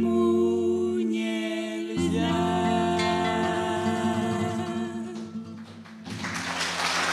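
Live singing with acoustic guitar: the final word of a bossa nova song is drawn out in a long held note over sustained guitar chords, closing on a last chord about six seconds in. Applause breaks out right at the end.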